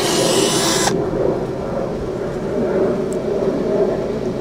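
Handheld cordless power pruning tool running in one short high whir during a pruning cut, cutting off sharply about a second in. A steady low drone carries on underneath.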